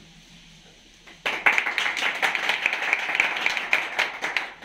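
A small group of people clapping their hands, starting suddenly about a second in and dying away just before the end.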